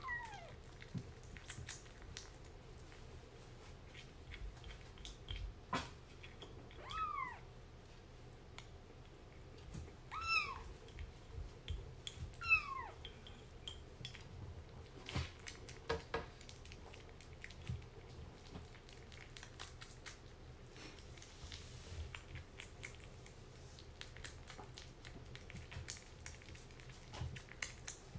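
Kitten meowing four short times in the first half, each cry arching and falling in pitch, over small clicks and smacks of a kitten eating wet food from a ceramic bowl.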